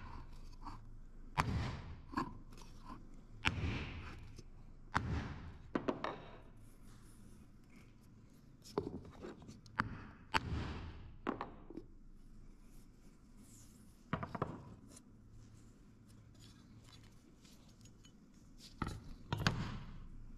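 A hammer striking a wooden block to drive a new mechanical shaft seal into a screw compressor's seal cover. About a dozen separate knocks come at irregular intervals, some in quick pairs, with pauses between them.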